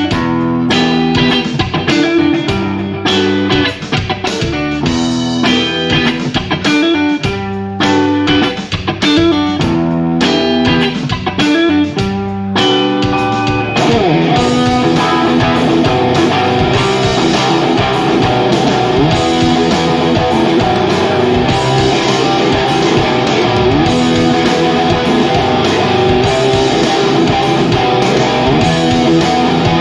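Live instrumental rock led by electric guitar: chopped stop-start riffing with short gaps for about the first thirteen seconds, then a dense, continuous wall of guitar.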